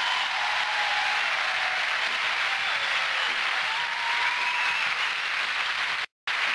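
Large theatre audience applauding steadily at the end of a musical number, with a few cheers rising above the clapping. The sound cuts out completely for a moment near the end.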